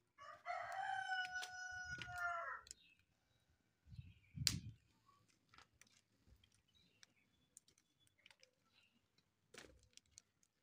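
A rooster crows once, a call of about two and a half seconds that falls in pitch at its end. About four and a half seconds in comes one loud sharp knock, followed by light clicks and knocks of firewood sticks being handled.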